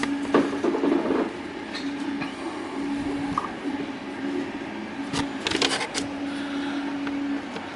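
Hands moving and adjusting a resin printer's build plate on its ball joint to square it, with scattered clicks and knocks, a cluster of them about five seconds in, over a steady low hum that drops in and out.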